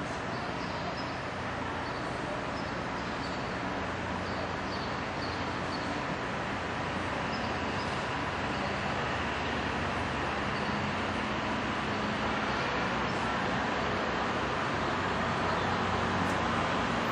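Steady rushing outdoor background noise that grows slightly louder, with a few faint high chirps in the first few seconds.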